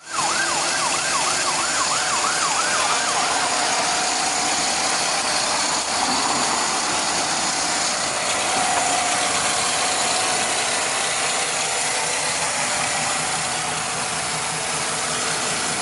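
2011 Chevrolet Silverado's engine running with the hood open, a steady mechanical whir with ticking from the engine and its belt-driven accessories. During the first few seconds a siren yelps in the background, sweeping up and down about three times a second.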